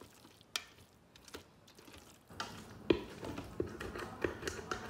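A spoon stirring thick pasta in an Instant Pot's stainless steel inner pot. There are a few scattered clicks at first, then from about halfway a quicker run of taps, knocks and scrapes against the pot, the loudest about three seconds in.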